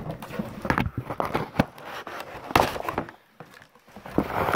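Cardboard packaging being handled and cut open: irregular knocks, clicks and scrapes of cardboard and the box.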